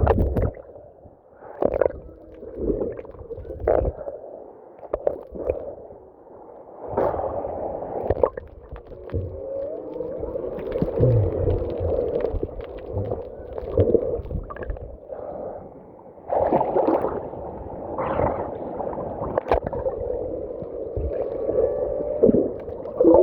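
Underwater recording of humpback whale song: calls that glide up and down in pitch, mixed with irregular gurgling and rushing water noise over the microphone.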